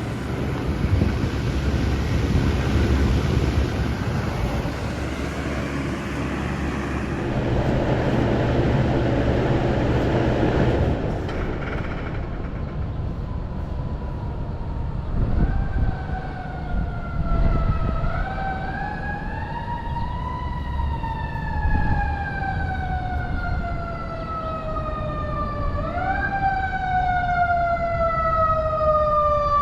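A steady rush of air-conditioner fan noise, then, from about halfway through, an emergency vehicle siren wailing over it. The siren rises quickly and falls slowly in long sweeps, several seconds apart.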